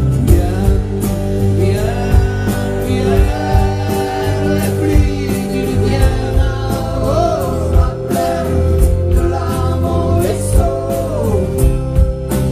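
Live rock band playing, with a man singing over drums, guitar and sustained low notes.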